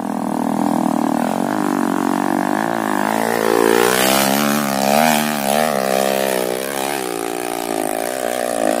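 Dirt bike engine revving, its pitch rising and falling again and again as the throttle is worked, most busily in the middle.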